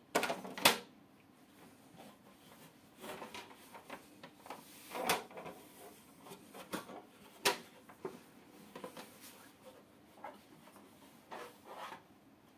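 Plastic lid of an Aquael Leddy 60 aquarium, with its built-in LED light tube, being picked up and handled: scattered hard clicks and knocks of plastic, the sharpest near the start, with softer rubbing between.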